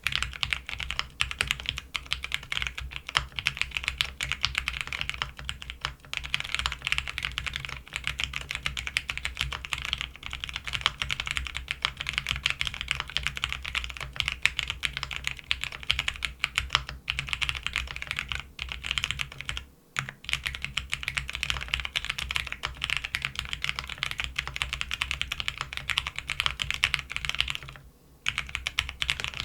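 Custom 4GT Silhouette mechanical keyboard with lubed Cherry MX Vintage Brown switches on a polycarbonate half plate, typed on fast and continuously. The typing pauses briefly about two-thirds of the way through and again near the end.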